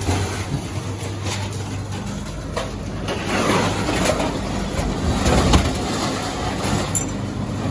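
The engine of a scrapyard magnet crane running steadily while it lifts scrap metal, with irregular clanks and scraping of metal pieces.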